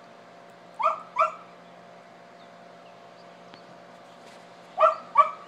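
A dog left alone in a parked car, barking two quick pairs of short, high yips about four seconds apart.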